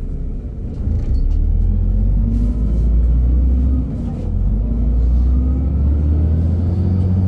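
LiAZ 5292.67 city bus, heard from inside the cabin, pulling away from a stop on its YaMZ-53624 natural-gas engine: a low rumble whose pitch climbs as it accelerates. About four seconds in the sound dips briefly at an upshift of the ZF automatic gearbox, then climbs again.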